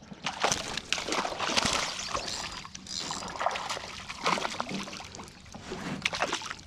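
Water splashing and sloshing irregularly as a hooked bass is fought in toward the boat.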